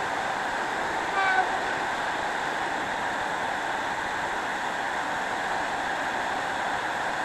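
Titan TTB774VAC 1300 W wet and dry vacuum running steadily with an even rushing noise, and a short high squeal about a second in.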